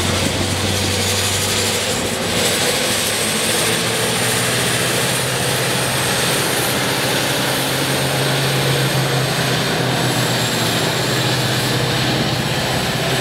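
Caterpillar 793D mining haul truck driving past loaded: its large V16 diesel engine runs under load with a deep drone that rises in pitch a few seconds in, and a thin high whine sits over it.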